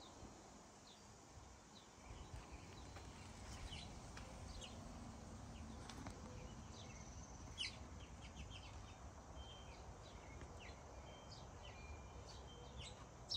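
Faint birdsong: scattered short chirps and quick calls from small birds, over a low steady rumble.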